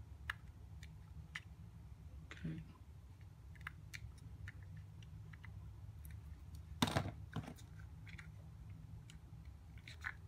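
Scattered small clicks and taps of a 3D-printed plastic part being handled, with two louder knocks close together about seven seconds in, over a low steady hum.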